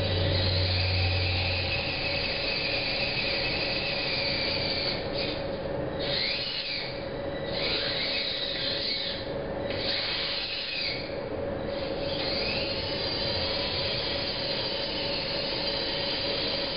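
Small electric gear motors on a Vex Robotics air-cannon tank whining as the turret turns and the barrel elevates. The whine comes in several runs that start and stop, rising and falling in pitch. A low hum drops out about two seconds in.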